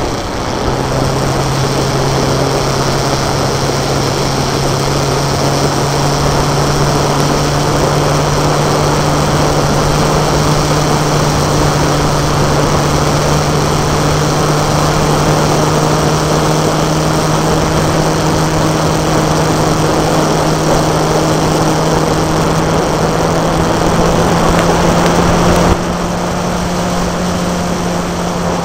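Motorcycle engine running at a steady cruise under wind noise, its note creeping slowly higher. The note steps up about a second in, and the overall sound drops suddenly a few seconds before the end.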